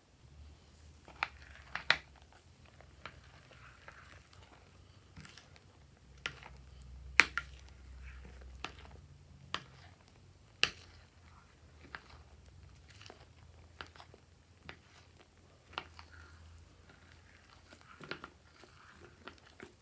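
Slime being handled and mixed by hand: irregular sticky clicks and pops, the loudest about seven and ten seconds in, over a faint low hum.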